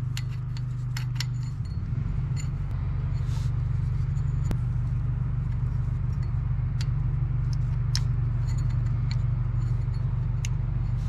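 Small sharp metallic clicks now and then as the distributor's mechanical advance parts (plate, weights, retaining clip) are handled and seated, over a steady low machine hum.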